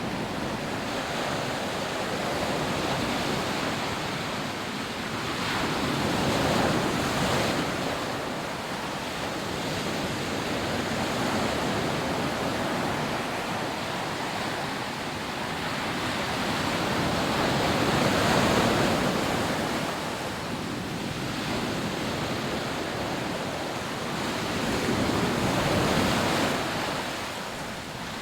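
Rough sea surf on a sandy beach: a steady wash of breaking waves that swells louder three times as bigger waves come in.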